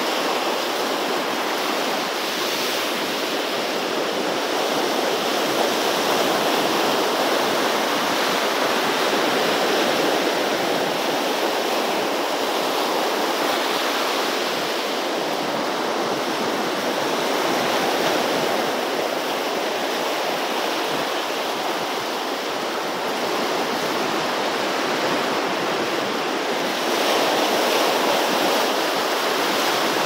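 Sea swell waves breaking on the beach: a continuous rush of surf that slowly swells and ebbs, a little louder near the end.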